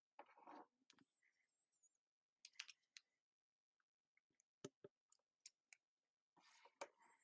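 Near silence, broken by a few faint, scattered clicks and soft rustles.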